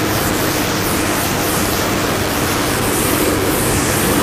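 Chalkboard duster rubbing across a chalkboard as writing is wiped off, a steady scrubbing hiss of repeated strokes.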